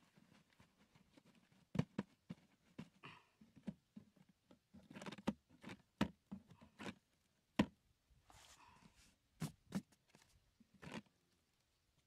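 Hands handling a cardboard box and its bamboo-stick grid: scattered faint taps and clicks, about eight in all, with a few short stretches of cardboard rustling.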